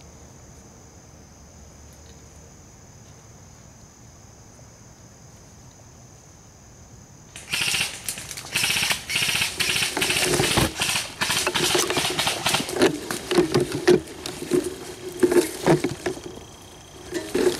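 Crickets trilling steadily for about seven seconds. Then loud, irregular rustling and scraping of ghillie netting and brush against the camera rig as the prone sniper shifts position.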